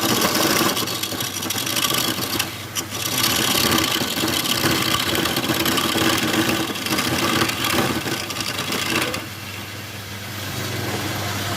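Wood lathe motor running with a steady hum while a turning tool cuts the spinning wood with a loud hissing scrape. The cutting stops about nine seconds in and the motor keeps running.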